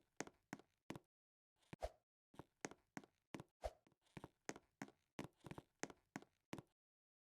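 A quick series of sharp knocks, about four a second, with a brief break a little after one second in, stopping shortly before the end.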